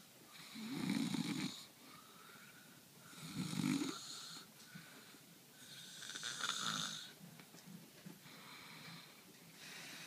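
A sleeping man snoring: three loud snores about three seconds apart, each lasting about a second, with softer breathing between and a fainter snore starting near the end.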